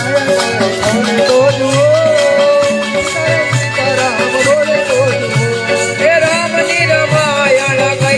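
Indian devotional dhun music: a wavering melody line over a steady drum beat, with shaken hand percussion keeping time.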